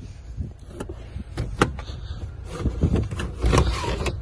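Nissan X-Trail third-row seat being pulled up by hand: a few sharp clicks from the folding seat mechanism, then, from about two and a half seconds in, a louder stretch of knocks and rubbing as the seat unfolds and the cargo trim is handled.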